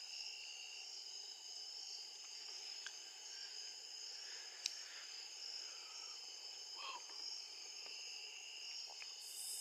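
Evening insect chorus: several steady, high-pitched cricket-like trills layered over one another. A single sharp click about halfway through.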